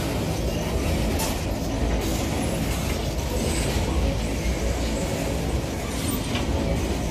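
Empty freight wagons rolling past on the track: a steady low rumble of steel wheels on rail, with a couple of sharp clicks.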